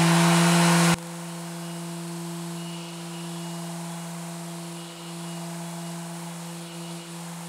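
Mirka Deros electric random orbital sander running steadily with a 1000-grit Abralon pad on a cast-iron table saw top, a steady hum. About a second in the sound drops sharply in level and the hiss falls away, leaving a quieter steady hum.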